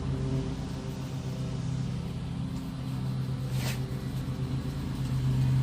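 A steady low machine hum, like a running engine or motor, with a brief hiss about three and a half seconds in.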